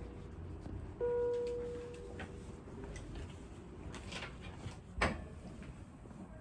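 Electronic chime from hospital bedside equipment such as a patient monitor. A single steady tone starts suddenly about a second in and fades over about a second and a half. A few soft clicks and knocks follow, the clearest about five seconds in.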